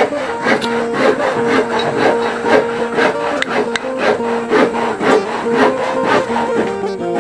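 Background music: a stepping melody over a steady beat.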